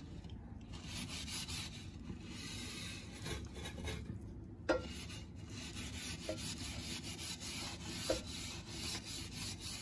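A hand scrubbing dirty window glass: a steady, faint rubbing with a couple of small knocks around the middle and near the end.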